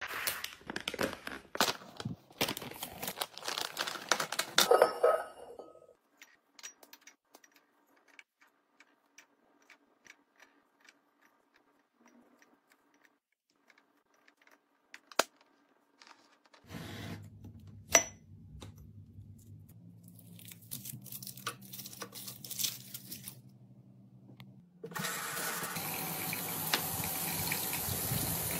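Crinkling plastic packaging, then scattered light clicks of small foil-wrapped pieces dropped into a glass jar. About three-quarters of the way through, a tap starts running water steadily into a white basin, the loudest sound.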